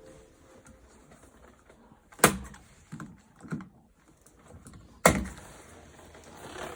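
Hand work in a small boat cabin: two sharp knocks about three seconds apart, with a couple of softer knocks between them.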